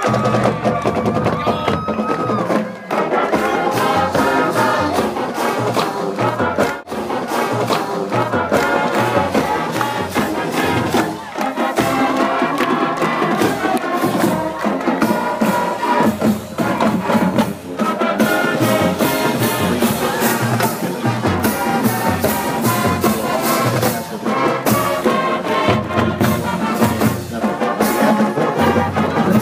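A marching band playing live, with brass and a steady pounding drum beat, and a crowd's noise underneath.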